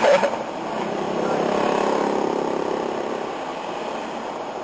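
A vehicle's engine running, heard inside the cabin as a steady hum that swells for a couple of seconds and then eases off.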